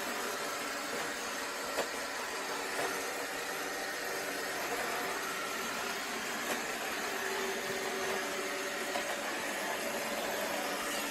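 iRobot Roomba 690 robot vacuum running, its steady whirr of suction motor and brushes, with a few faint ticks.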